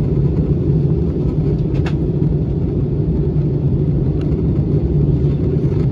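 Steady low roar of engine and airflow noise inside the cabin of an Airbus A321 airliner descending towards landing, with one faint click about two seconds in.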